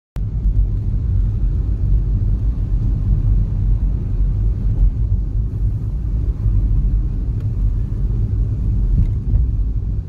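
Car driving, heard from inside the cabin: a steady low rumble of engine and tyre noise.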